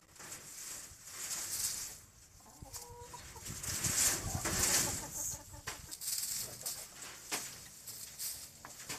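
A hen clucking while she pecks and rummages through dry rice straw, the straw rustling, loudest around the middle.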